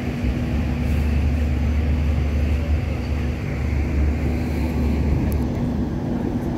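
Hong Kong Light Rail Phase III light rail vehicle running, heard on board: a steady rumble of wheels on rail with a steady hum. A deep low rumble under it drops away about five seconds in.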